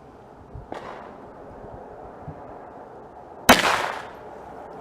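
A single shot from a Smith & Wesson Victory .22 LR pistol firing a CCI Mini-Mag about three and a half seconds in: one sharp crack with a short echo tail.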